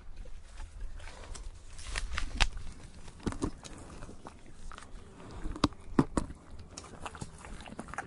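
A horse chewing tree bark: irregular crunching and cracking bites, with the sharpest snaps a little over two seconds in and a cluster around six seconds in.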